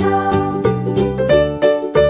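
Children's background music: a pitched melody over a steady beat, with notes changing about three times a second.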